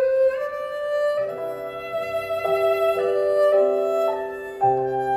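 Violin music: a long held violin note gliding slightly upward, then from about a second in a melody over sustained chords.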